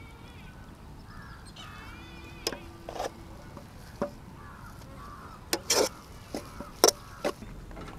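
Small birds chirping and warbling in the background, with a scattered series of short sharp knocks, the loudest of them about two-thirds of the way through.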